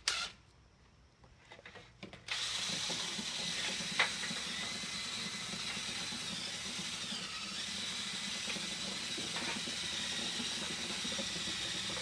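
Cordless drill spinning a dryer-vent cleaning brush on a flexible rod inside a rigid galvanized metal vent pipe, starting about two seconds in and then running steadily. One sharp click about four seconds in.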